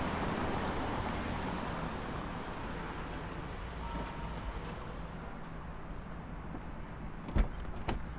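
Volkswagen minivan pulling in and coming to a stop, its engine and tyre noise fading over the first few seconds. Near the end the car door is opened with one sharp latch click, followed by a couple of smaller clicks.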